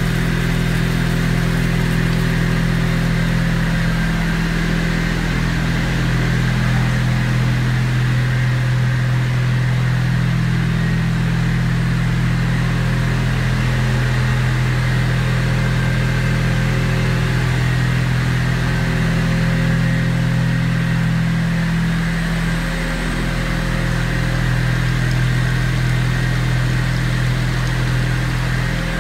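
A Volute sludge dewatering screw press installation running, giving a steady low machine hum that holds level throughout.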